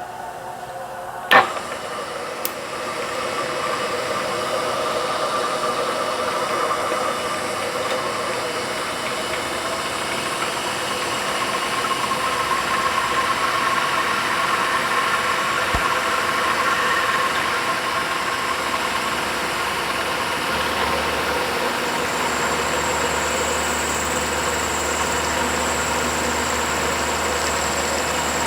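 ProtoTrak CNC knee mill running, its spindle cutting an aluminium plate with a steady whir and wavering tones. There is one sharp click about a second in, and a low hum joins after about twenty seconds.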